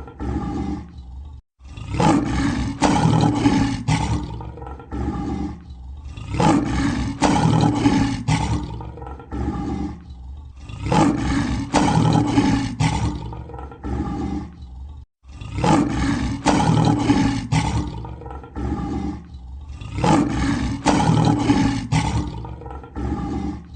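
Lion roaring over and over, each bout a few seconds long, with short pauses between them about every four to five seconds.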